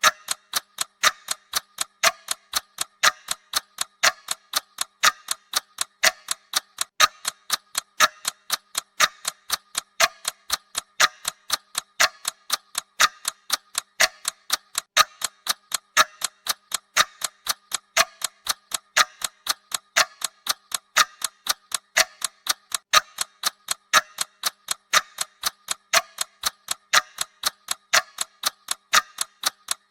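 Clock-style ticking sound of a countdown timer: quick, sharp, perfectly even ticks that run on without a break.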